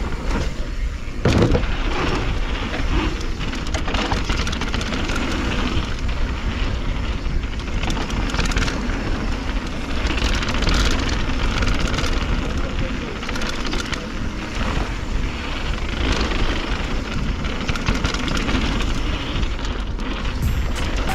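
Wind buffeting the microphone of a mountain biker descending a dirt trail, over the rumble of tyres on dirt and the rattle of the Propain Spindrift bike over bumps.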